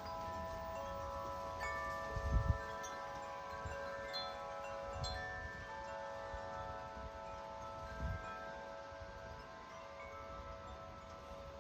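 Large 50-inch Corinthian Bells wind chime ringing in strong, gusty wind, its long tubes sounding many overlapping, sustained tones. Wind buffets the microphone with a low rumble about two seconds in, the loudest moment, and again about eight seconds in.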